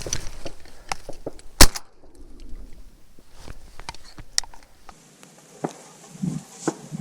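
Scattered clicks and knocks over a faint hiss. One much louder sharp knock comes about one and a half seconds in, and another fairly loud one a few seconds later.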